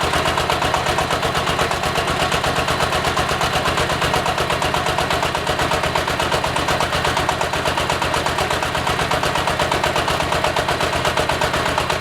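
Diesel engine of a hydraulic water well drilling rig running steadily, with a rapid, even knocking pulse.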